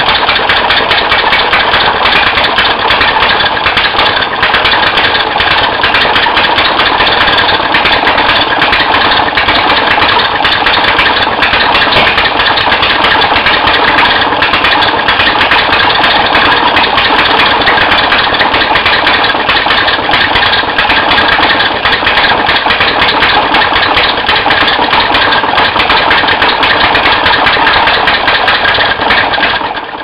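Easy gasoline washing-machine motor, a small kick-start single-cylinder engine with an external push rod, running steadily with a rapid, even firing beat.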